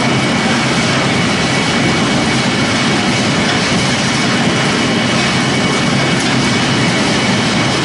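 Pellet mill and its belt conveyor running under production, making a loud, steady mechanical noise with a faint high whine held through it.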